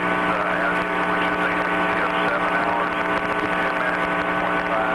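Steady hum made of several fixed tones over a hiss, the background of an open downlink audio channel from the shuttle's mid-deck.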